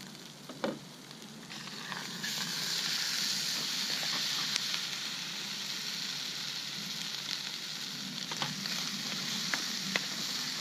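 Food frying in a hot pan: a steady sizzle that swells up about two seconds in and holds, with a few light clicks and taps.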